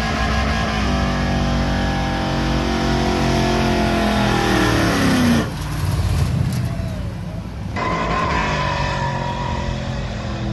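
Car engines revving hard at high rpm during burnouts, over a steady hiss of spinning tyres. The first engine note holds high, then drops away about five seconds in. The sound changes abruptly to another engine running hard, whose pitch also falls.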